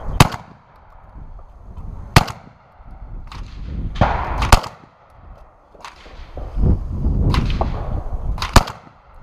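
Four shots from a Beretta 1301 Competition 12-gauge semi-automatic shotgun, irregularly spaced about two to four seconds apart, with fainter clicks and knocks between them.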